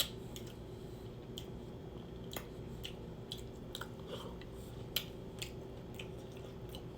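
A person chewing seafood boil close to the microphone, with scattered soft mouth clicks and smacks, over a faint steady hum.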